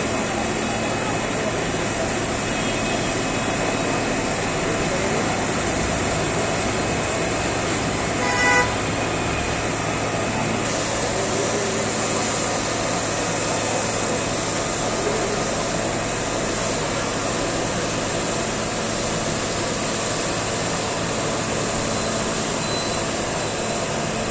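Steady vehicle engine and road noise, with a short horn toot about eight seconds in.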